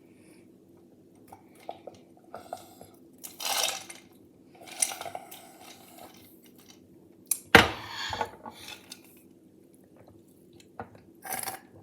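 Mouth and swallowing noises of someone gulping soda between short handling sounds of the drink containers, with one sharp knock or click about seven and a half seconds in.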